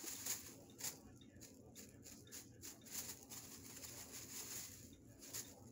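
Thin plastic bag crinkling and rustling as a cat paws at it and wrestles in it, an irregular run of quick crackles.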